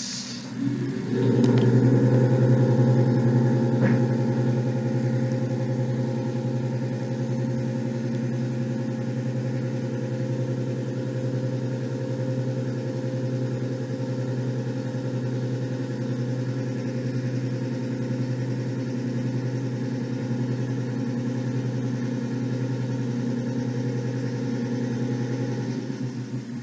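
Märklin HO model train's electric motor running, a steady buzzing hum that starts about a second in and dies away near the end.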